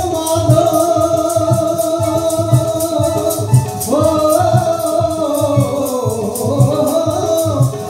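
A man singing a Punjabi devotional song in long held notes to harmonium accompaniment, over a steady drum beat and a rhythmic rattle. The melody climbs to a higher held note about four seconds in, then falls away near the end.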